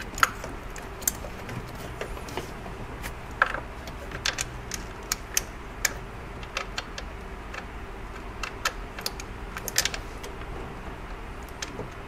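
Irregular small metallic clicks and taps of a hand tool with a Torx bit working loose the screws that hold a PCV valve to the engine, some coming in quick clusters.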